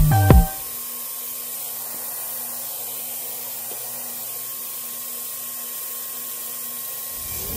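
Music cuts off about half a second in, leaving the steady whir of a running shop machine with a faint hum. Near the end a rising music sweep comes in.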